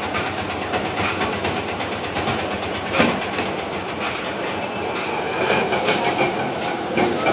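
Steady din of a busy small eatery: a dense clatter of fine clicks and ticks, with a sharp knock about three seconds in and another near the end.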